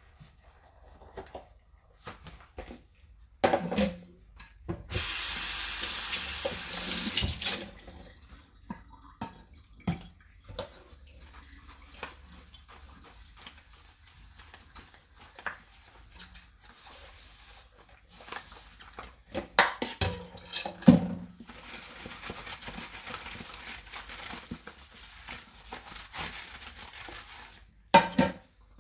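Dishes being washed by hand at a kitchen sink: the tap runs hard for a couple of seconds, and dishes knock and clatter against each other and the sink. Later the tap runs again, more softly.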